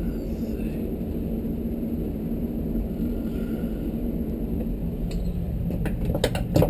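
Steady low hum of a background machine, with a few sharp clicks near the end as wire connectors and parts of the tankless water heater are handled.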